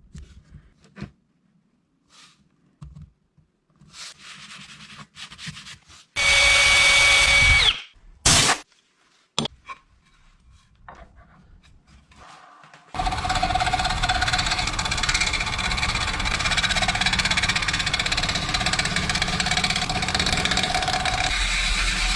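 Light knocks and handling of wood, then an electric power tool briefly run up twice, and from about halfway a power tool running steadily as it works the wood.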